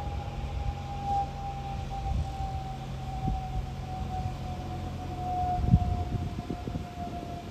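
Business jet passing overhead: a steady, high engine whine that slowly falls in pitch as it goes by, over a low rumble. A few low thumps come near the end.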